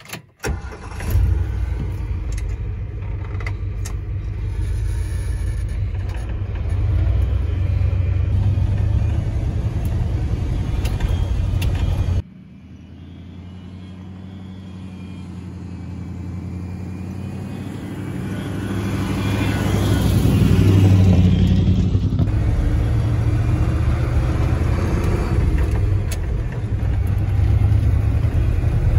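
1979 Ford F250's 351M V8 starting and running on its freshly rebuilt two-barrel carburetor. After an abrupt cut about 12 s in, the truck pulls away and the engine note rises as it accelerates, then settles into a steady run.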